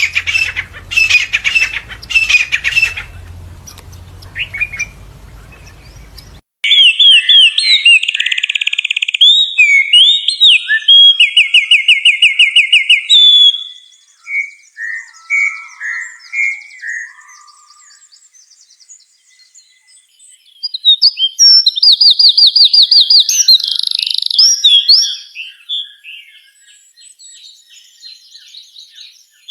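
Songbirds calling and singing. There are a few short bursts of chirping over a low hum, then an abrupt change about six seconds in to a bird singing loud, fast trills and warbled phrases, with quieter chirps in between.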